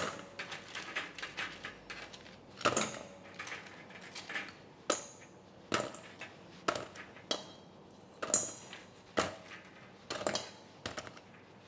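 Metal spoon clinking and scraping on a wire cooling rack and a stainless steel bowl as crisp fried chicken wings are dropped into the bowl. It is a string of irregular sharp knocks and rattles, the loudest about three seconds in and again near eight seconds.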